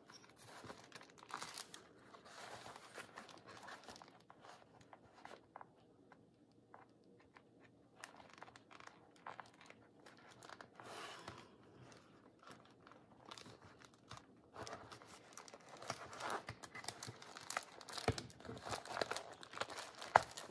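Paper pages and card being handled and shuffled, irregular rustling with small clicks and knocks, busier in the second half, with one sharp click shortly before the end.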